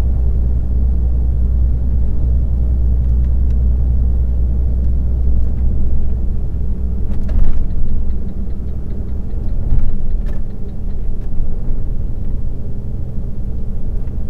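Car driving at speed, heard from inside the cabin: a steady low road and engine rumble that eases about halfway through, with a couple of brief louder noises near the middle.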